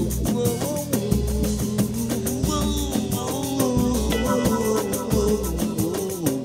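Band playing the instrumental opening of a song: drum kit, bass and guitar over a steady beat.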